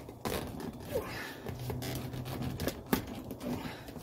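Rear seat back of a 1985 Mercedes-Benz 300CD being worked loose and slid out by hand: rustling upholstery and a few light knocks and clicks of the seat frame and trim.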